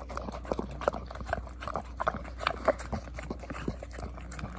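Golden retriever licking and lapping at a stainless steel bowl, licking it clean: a quick, irregular run of clicks and smacks, several a second.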